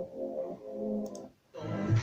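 Electronic dance music playing through a loudspeaker system during a bass test. Held synth chords give way to a short gap of near silence about a second and a half in, after which a heavy bass beat kicks back in.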